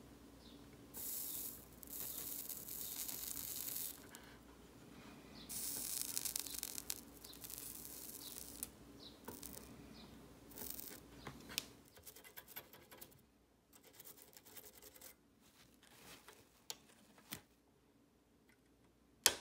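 Flux and solder sizzling on a soldering iron tip as a tantalum capacitor's leads are soldered to a circuit board, in two hissing spells of a few seconds each. Small handling clicks follow, and near the end one sharp snip of flush cutters trimming the capacitor lead.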